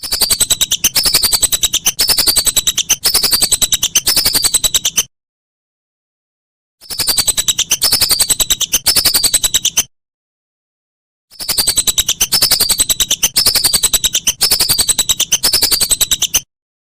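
Whistling duck (belibis) calling: rapid runs of high, falling whistled notes in three bouts of about three to five seconds each. Each bout breaks off suddenly into dead silence, as in an edited, looped recording.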